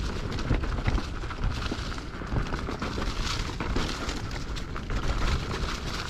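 Hardtail mountain bike riding fast over leaf-covered dirt singletrack: tyres crunching through dry leaves, with frequent rattles and knocks from the bike over bumps and a steady low rumble.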